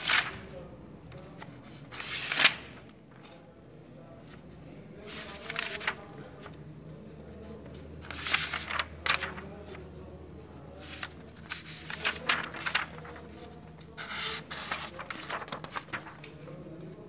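Pages of a paperback textbook being turned by hand, paper rustling in short bursts every few seconds.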